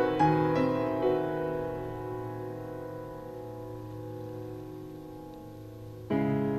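Slow piano music: a few struck notes, then a chord left ringing and slowly fading, and a new chord struck about six seconds in.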